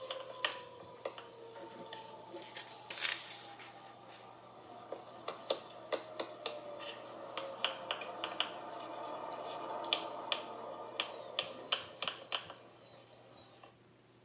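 A dual-tone outdoor tornado warning siren winding down, its two tones sliding slowly lower and fading. Over the middle of it comes a run of sharp, irregular clicks.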